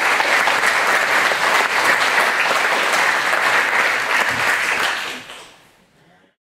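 Audience applause in a large hall, many hands clapping, fading away near the end.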